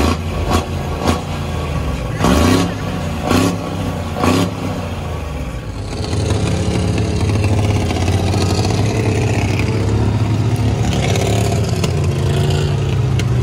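Large truck engine revving in several short blips, then settling from about six seconds in into a steady, loud run.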